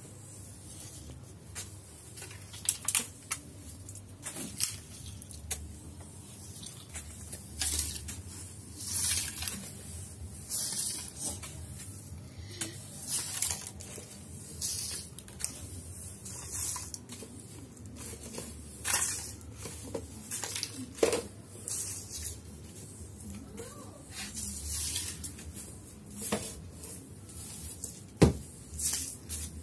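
A broom sweeping a tiled floor: irregular swishes of the bristles, roughly one stroke every second or two, with a few light knocks and one sharp knock near the end.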